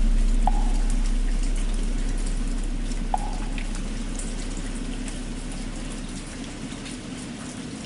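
Steady rain with the low hum of a struck temple bell slowly dying away under it. Two light knocks come about half a second and three seconds in.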